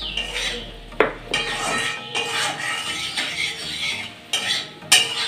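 Spatula stirring and scraping curry in a black kadai (wok), with metal clanks against the pan. There is a sharp knock about a second in and another near the end.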